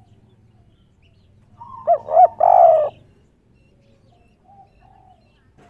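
Spotted dove cooing once, a three-note 'kuk 3' coo about two seconds in: two short notes and then a longer one. Faint chirping of other birds around it.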